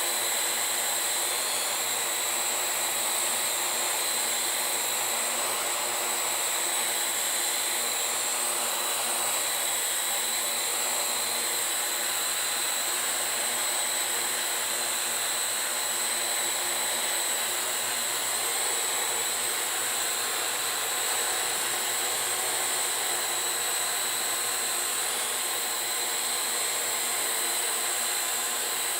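Parrot AR.Drone 2.0 quadcopter's four electric motors and propellers running steadily: an even whirring hiss with a constant high whine.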